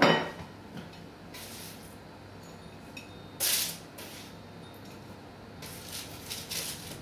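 Kitchen handling sounds: a sharp knock at the start, then a few short scraping sounds as baked puff pastries are moved about on a baking tray and plate.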